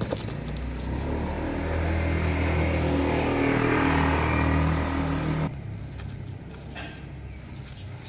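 A motor vehicle's engine running close by: a low steady hum that grows louder and then cuts off abruptly about five and a half seconds in, leaving only faint light clicks.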